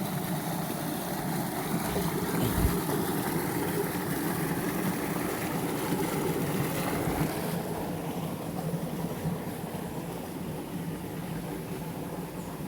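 Waterfall water rushing steadily, with a low steady hum underneath; it eases slightly about two-thirds of the way through.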